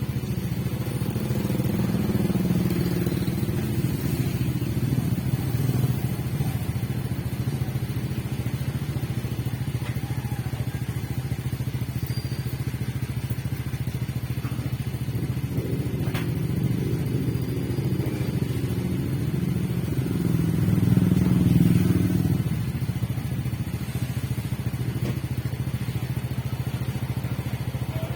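Small motorcycle engine running steadily, swelling louder for a couple of seconds about 20 seconds in.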